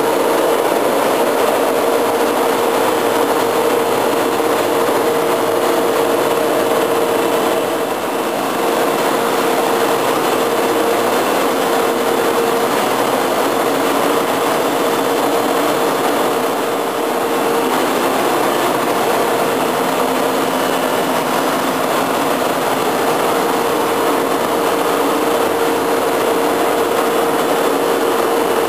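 Steady machinery hum and hiss with a constant mid-pitched tone running underneath, dipping slightly twice.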